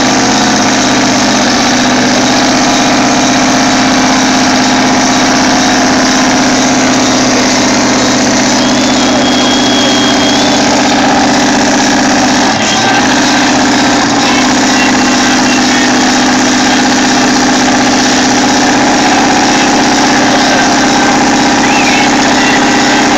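Pickup truck engines, a Chevy Silverado and a Ford F-150, running loud and steady as the two trucks pull against each other in a tug-of-war, with a brief dip about halfway through.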